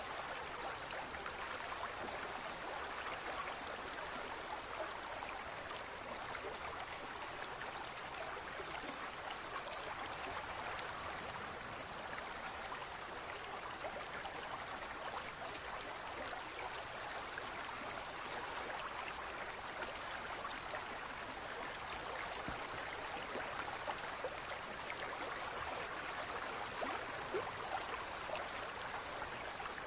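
Water in a large aquarium trickling and splashing steadily, a continuous stream-like wash with fine droplet ticks.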